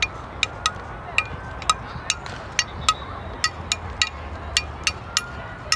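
A quick, irregular series of sharp clinks, about two to three a second, each with a brief ringing tone, over a steady low rumble.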